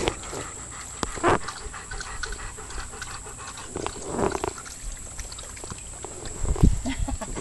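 Dog panting close by, among scuffling and handling clicks, with a low thump near the end.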